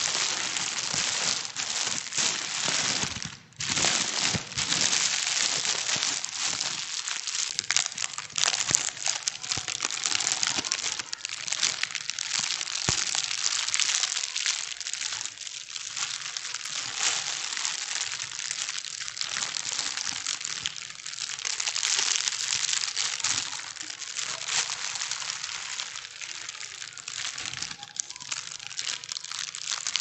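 Thin plastic bags being crumpled and crinkled without a break, a dense, uneven crackling rustle. It drops out briefly about three and a half seconds in.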